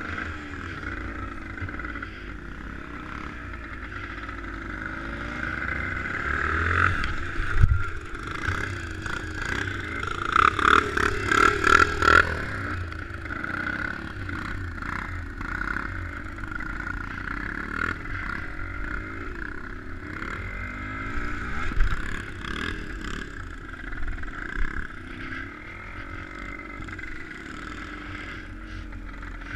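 A motor vehicle's engine running, its pitch drifting up and down with the revs. A burst of clattering and knocking comes about seven to twelve seconds in.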